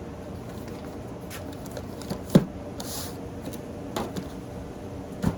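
Packaged fireworks being handled: a sharp knock a little over two seconds in, a brief rustle, then two lighter knocks near the end.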